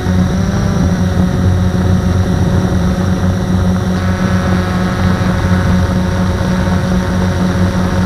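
Blade 350 QX quadcopter's four electric motors and propellers whirring steadily in flight, heard close up from aboard the drone. It is a loud, even hum with a higher whine, whose upper tones shift a little about halfway through.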